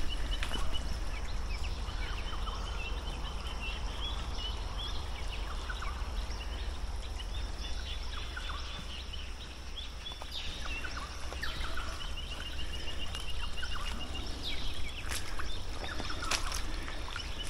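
Rainforest ambience: assorted birds calling in short chirps, with a rapid high trill repeating at one pitch, over a steady low rumble.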